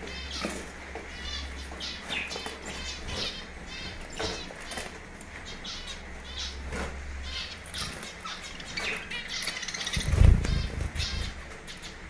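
Zebra finches giving many short, repeated high chirps as they are let out of a cardboard box, with rustling of the box and wing flutters. A louder low thump comes near the end.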